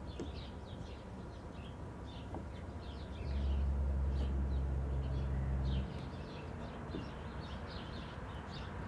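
Small birds chirping over and over in the background. A low steady hum starts suddenly about three seconds in and cuts off about two and a half seconds later.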